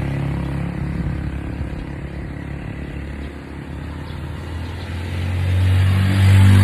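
An engine running steadily, growing louder over the last second or two.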